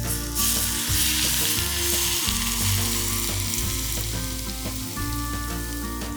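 Hot oil sizzling hard on food, starting suddenly just after the start and slowly easing toward the end, over background music.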